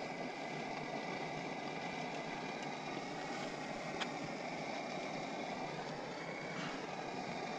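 A steady mechanical hum, like an engine running, over an even noise.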